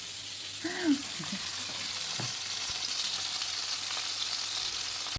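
Food frying in oil in a pan: a steady sizzling hiss, with a short vocal sound about a second in. It cuts off abruptly at the end.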